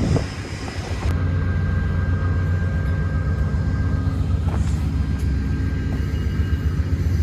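Diesel locomotive engine running steadily while the train stands at the platform, a low even hum with a faint steady whine above it; it dips briefly in the first second, then holds steady.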